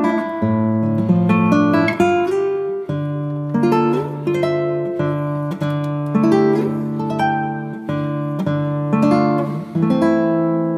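Background instrumental music: a melody of plucked acoustic guitar notes, each ringing and fading.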